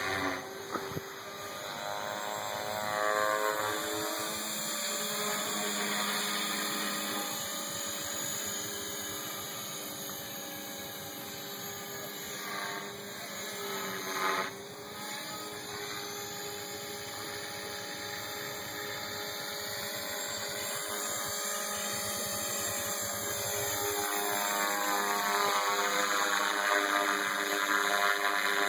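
Align T-Rex 500 flybarless electric RC helicopter flying aerobatics overhead: a steady whine from the motor and rotor blades. Its pitch sweeps up and down as the helicopter passes and manoeuvres, and it grows louder near the end.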